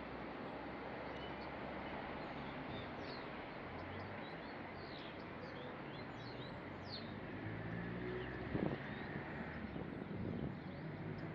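Steady outdoor background noise with small birds chirping in quick short calls, mostly in the middle; a few short knocks or rustles near the end.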